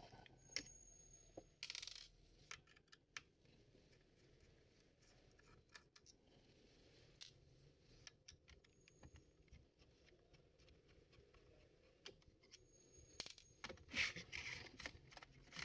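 Faint clicks, taps and scrapes of a laptop being taken apart by hand: small screws and plastic parts of the case and optical drive being handled, with a busier cluster of clicks near the end.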